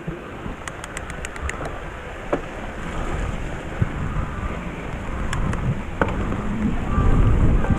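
Downhill mountain bike riding a wet trail: wind buffeting the microphone and tyre rumble, getting louder as speed builds. About a second in there is a quick run of sharp ticks, and a few single knocks come later.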